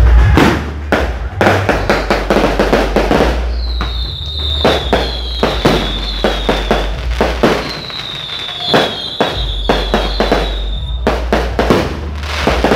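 Fireworks going off in quick succession: a dense series of bangs and crackles, with a run of falling high whistles overlapping one another from about four to eleven seconds in.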